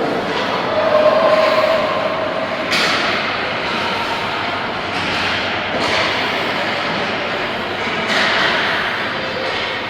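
Ice hockey rink game noise: a steady echoing scrape and rumble of skates on ice, with sharp knocks of sticks, puck or boards about 3 seconds in and again near 8 seconds.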